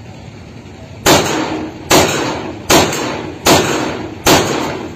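Five shots from a '20 shot' pistol being test-fired, at an even pace just under a second apart, each followed by a short echoing decay.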